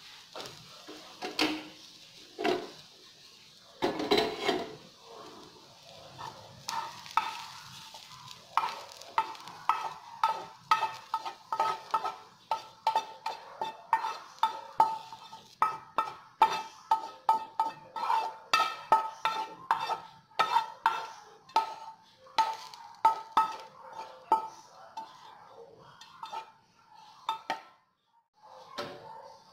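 A metal spoon stirring briskly in a bowl, clinking against its side about two to three times a second with a light ringing note. In the first few seconds a wooden spatula scrapes and knocks fried onions out of a frying pan.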